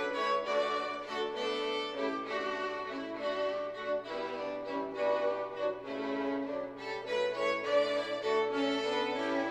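Background music led by a violin playing slow held notes.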